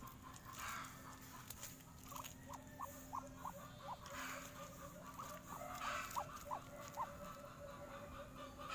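A series of soft, short chirping calls, about two a second, over faint rustling and a steady low hum.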